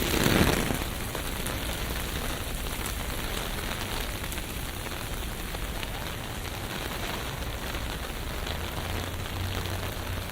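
Steady hiss of rain falling on a city street, with a brief louder rush of noise in the first second and a faint low hum coming in near the end.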